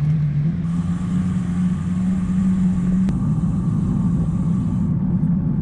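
A motor vehicle's engine running close by, a steady low hum whose pitch rises slightly over the first few seconds and then holds.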